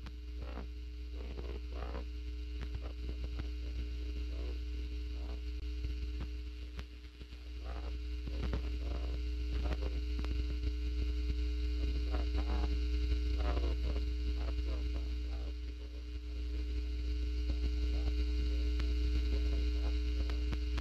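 Steady electrical hum with a low rumble from a microphone that has cut out, with faint wavering sounds underneath. The level dips briefly twice.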